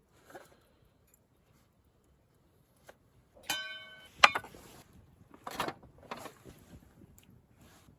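Metal camping gear being handled: a brief ringing metal clink about halfway through, then a sharp clack. A couple of scraping, rustling handling sounds follow.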